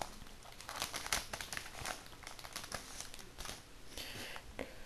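Trading card booster pack wrapper crinkling as it is opened and the cards are handled, a run of fast, irregular crackles.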